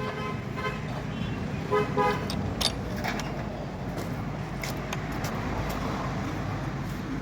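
A vehicle horn tooting in several short bursts, then a few sharp metallic clicks and knocks, over a low steady rumble.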